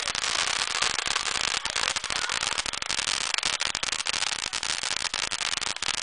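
Ground fountain firework spraying sparks, a steady hiss packed with rapid crackling pops.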